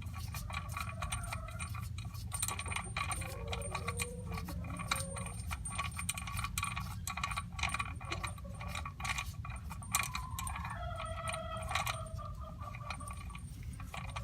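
Scattered light metallic clicks and taps of bolts and hand tools being handled while a bolt is fitted into the engine, over a steady low hum.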